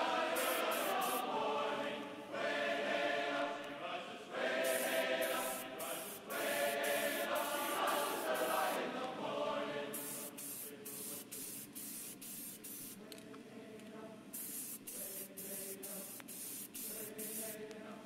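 Short hissing bursts of paint being sprayed onto plastic model car parts, over background music of choir-like chanting voices.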